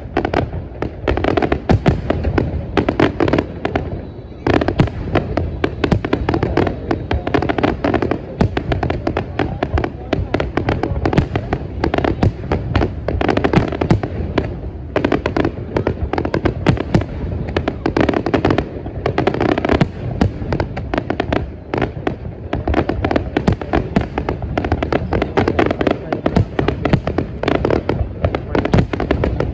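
Aerial fireworks display: a dense, nearly continuous barrage of bangs and crackling, with a brief lull about four seconds in.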